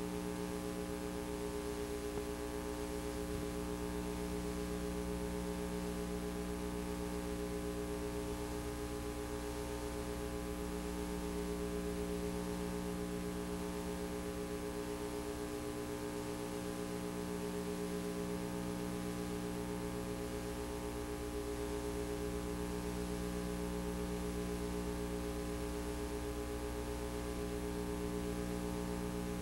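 Steady electrical hum with a faint hiss, unchanging throughout: noise from the VHS transfer of a tape with no recorded audio, with no sound from the scene itself.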